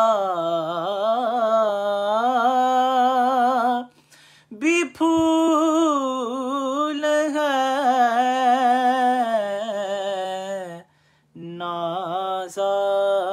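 A man singing an Urdu naat unaccompanied, holding long ornamented notes that waver in pitch. He breaks off for breath about four seconds in and again near eleven seconds.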